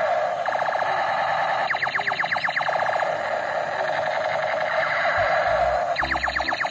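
Battery-powered Captain America toy light gun playing its electronic shooting sound effect through its small speaker: a continuous warbling laser tone, with runs of fast repeated sweeps about two seconds in and again near the end.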